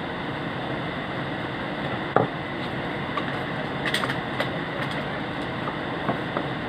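A single sharp knock about two seconds in, then a scatter of light clicks and taps, over a steady background hiss.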